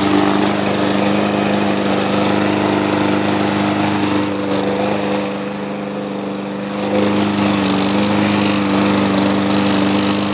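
Gas walk-behind push mower's small engine running steadily while mowing grass, at an even pitch, briefly quieter in the middle before coming back up.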